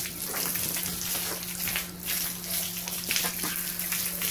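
Water spraying from a hose wand onto a bare cast-iron 7.3 Powerstroke diesel block, rinsing it after cleaning. It makes a hissing spatter that swells and dips as the spray moves over the cylinder bores and main bearing saddles.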